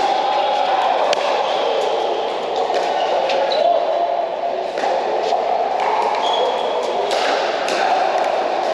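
Pickleball rally: sharp pops of paddles striking the plastic ball every second or two, with ball bounces on the court and a couple of short shoe squeaks, over the steady background noise of a large indoor hall.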